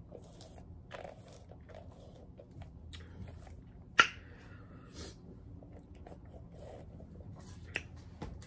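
Eating sounds: quiet chewing with a few small clicks, and one sharp click about four seconds in.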